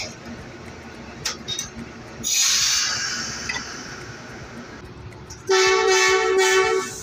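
A diesel locomotive's air brakes let off air with a loud hiss about two seconds in, fading over about a second. Near the end its air horn sounds one steady blast of about a second and a half.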